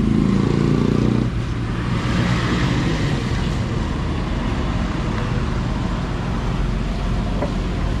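A motor vehicle engine running nearby, its low drone dropping away about a second in, with steady road traffic noise going on throughout.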